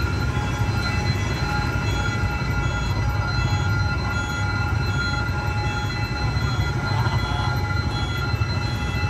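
Railway level-crossing warning bell ringing over and over in an even, repeating pattern, over a steady low engine rumble.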